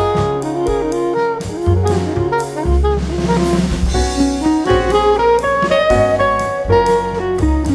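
Instrumental background music in a jazz style: a melody moving over a bass line, with a drum kit keeping the beat.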